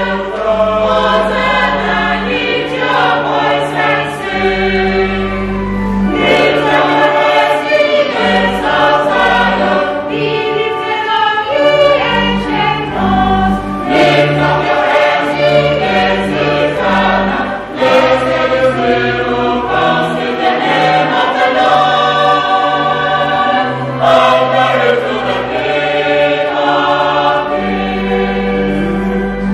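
Church choir of mixed men's and women's voices singing in parts, over held low bass notes that change in steps.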